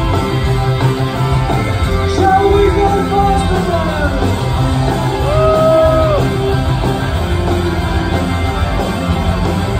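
A rock band playing live on electric guitars, keyboards, bass and drums, with singing over it.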